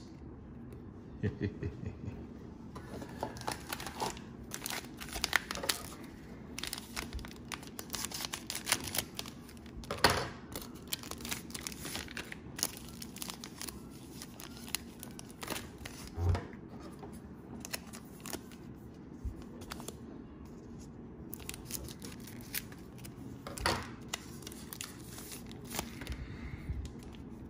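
Cellophane wrapper of a Panini Prizm cello pack of trading cards being torn and crinkled, in irregular crackles with a few louder snaps.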